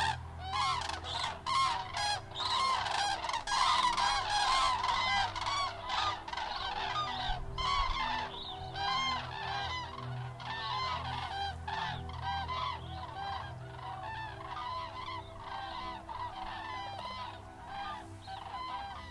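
A flock of common cranes in flight, many birds calling at once in a dense chorus of overlapping calls. The chorus thins out about halfway through, leaving fewer and more separate calls.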